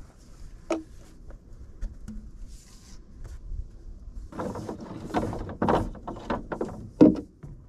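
PVC drain pipe and fittings knocking and clattering as they are handled and set down: one sharp knock near the start, then a quick run of knocks in the second half, the loudest just before the end.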